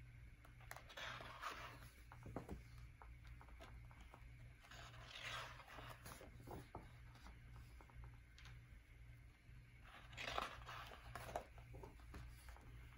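Large paper pages of a handmade photo book turned slowly by hand: three faint rustling page turns a few seconds apart, over a low steady hum.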